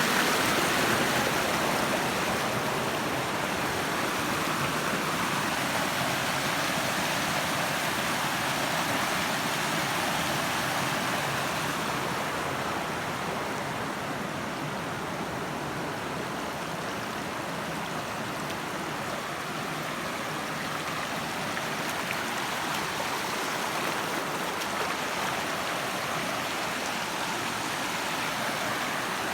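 Waterfall water rushing and splashing, a steady even rush with no break.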